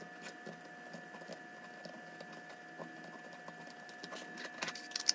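Light clicks and rustles of paracord being pulled through a 3D-printed plastic magazine holder, growing busier near the end, over a faint steady hum.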